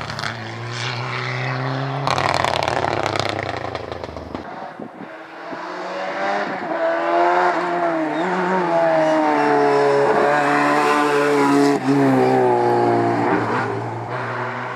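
Ford Sierra Cosworth rally car's turbocharged four-cylinder engine at full throttle on a stage, the pitch climbing and falling with gear changes as the car approaches and passes, loudest in the middle and fading near the end. The first few seconds hold a different rally car's engine.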